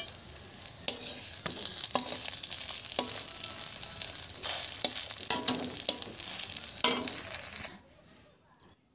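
A patishapta (rolled rice-flour crepe) frying and sizzling in a metal wok, with a steel spatula scraping and tapping the pan several times. The sizzling cuts off suddenly near the end.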